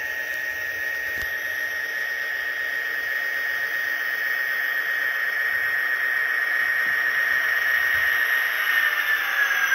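HO scale model EMD GP60 locomotive's Soundtraxx Tsunami sound decoder playing diesel running sound with a steady high whine, with the model rolling on the track, growing gradually louder as it approaches. Near the end the whine dips in pitch.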